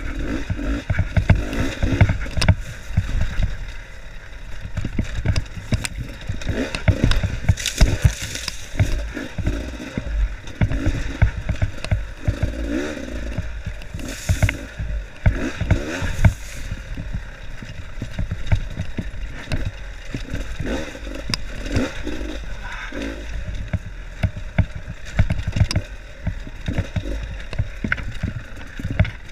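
Dirt bike engine running on a rough, rocky downhill trail, its revs rising and falling, under a constant clatter of knocks as the wheels and suspension hit loose rocks. Tall grass scrapes past the bike in places.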